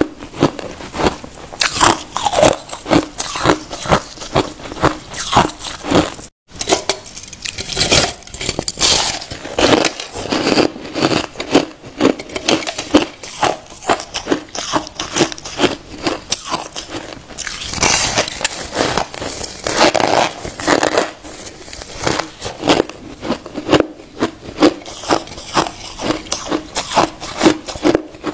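A person biting and chewing chunks of compacted crushed ice: a continuous run of loud, irregular crunches and crackles. The sound drops out for an instant a little after six seconds in.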